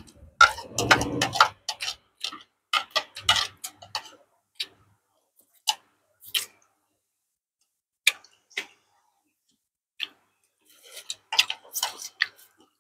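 Scattered sharp clicks and taps of chopsticks and a spoon against porcelain bowls, with the mouth sounds of eating. They come in clusters near the start, about three seconds in and near the end, with sparse single ticks between.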